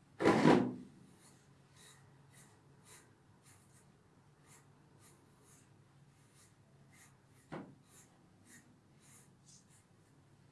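Faint scratchy strokes of a brush through a cocker spaniel's long coat, about two a second. A loud short burst of noise comes about half a second in, and a smaller one near the three-quarter mark.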